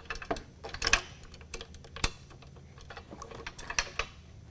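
Light, irregular metal clicks and knocks as an intercooler and its loosely bolted brackets are shifted and lined up against a side-by-side's roll bar. There are about six sharp clicks, the strongest about one and two seconds in.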